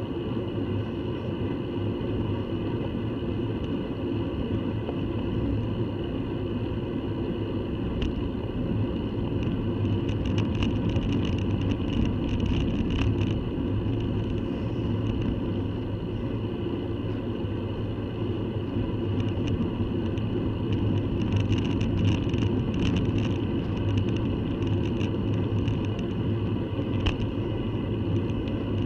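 Steady wind noise over the microphone of a camera mounted on a road bike, with the rumble of tyres on tarmac and scattered light clicks and rattles.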